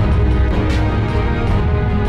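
Background music: sustained chords over a steady, heavy bass, with a bright accent about two-thirds of a second in.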